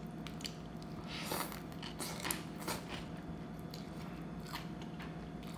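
Close-up eating sounds: a person chewing a mouthful of rice noodles in spicy curry, with soft wet smacks and clicks every second or so, over a faint steady hum.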